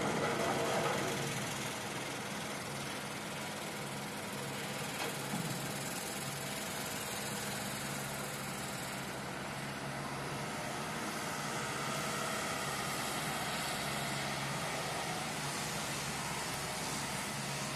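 An engine running steadily, a constant low hum under a wash of outdoor noise, a little louder at the very start.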